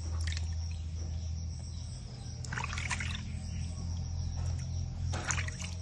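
Bath water splashing and trickling as hands scoop it over two baby monkeys in a basin, in three short spells, over a steady low hum.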